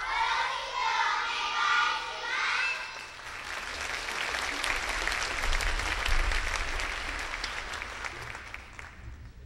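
A chorus of young schoolchildren voicing the last lines of a choral recitation in unison, ending about three seconds in. Audience applause follows and fades near the end.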